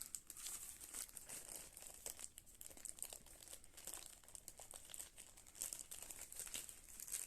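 Faint, irregular crinkling and rustling of mail packaging as a package is handled and opened by hand.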